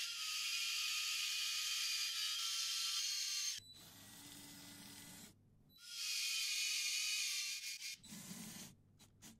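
Small electric motors and plastic gears of a Lego Technic remote-controlled car whining as it drives, in two long stretches. Between them comes a quieter, lower motor hum, and there are a few short clicks near the end.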